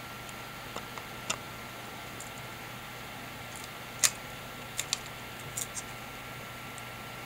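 Scattered light clicks and taps from hands handling a camera, over a steady hiss with a faint thin tone; the sharpest click comes about four seconds in, with a few smaller ones soon after.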